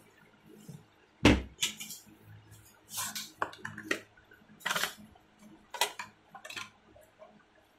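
Tools and metal parts clattering on a workbench while a plastic tool case is handled and opened to get out a vernier caliper: a loud knock about a second in, then a string of clinks and rattles.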